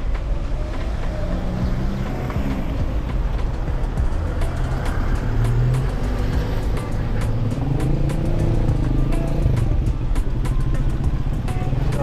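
Motor vehicle engines and road noise with a steady low rumble, rising and falling in pitch in places, mixed with music.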